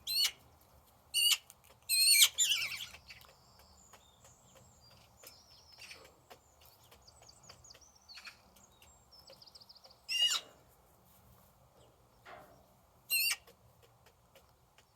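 Birds calling: a few loud, short calls, several in a quick run about two seconds in and single ones near ten and thirteen seconds, with fainter twittering between them.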